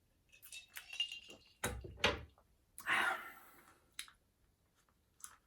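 A spoon scraping and clinking in a dessert pot: a cluster of light clicks, a heavier knock about two seconds in, a longer scrape about three seconds in, then a couple of single clicks.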